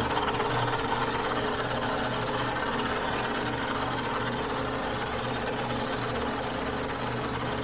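Metal lathe running at 745 RPM under power feed, taking a light finishing cut across the face of a Dana 60 axle shaft: a steady machine hum with the even hiss of the cutting tool.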